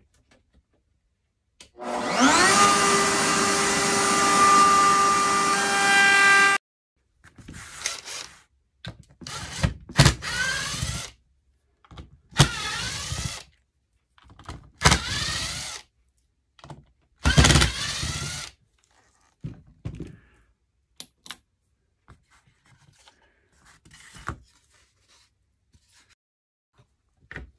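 Electric router with a pattern bit spinning up and running for about five seconds, then stopping suddenly, followed by five shorter bursts of running as it trims the wood; faint handling noise after.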